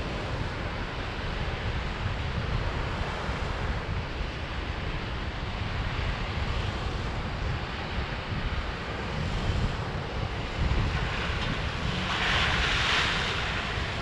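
Wind buffeting the microphone over the steady wash of breaking surf. About twelve seconds in, a louder hiss rises for a second or so as a Toyota Land Cruiser Prado drives through shallow seawater on the beach.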